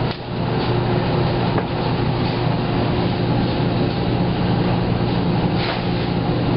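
Steady running hum and rumble of laundromat machines, with a low electrical-motor drone under it.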